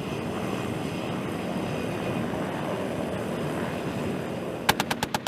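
Steady rushing noise of a helicopter in flight, with wind on the microphone. Near the end, a rapid burst of sharp cracks of gunfire comes in, about seven in half a second.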